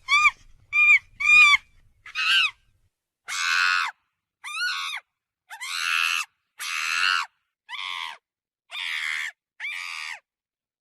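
A monkey calling, about a dozen short high-pitched calls, each rising and falling in pitch, roughly one a second. The first few are clear chirps; the later ones are longer, harsher screeches.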